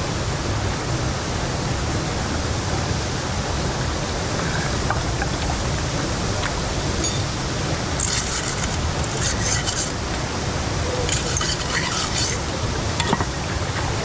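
Steady rush of a waterfall and stream, with watery splashing as a metal pan is rinsed and scrubbed by hand in the stream, in two bursts of splashing about eight and eleven seconds in.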